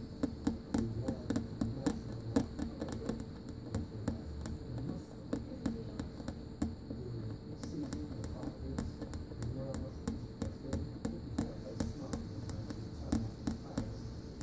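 Irregular small clicks and taps, many in quick succession, from hand tools at work on a repair bench, over a steady hum.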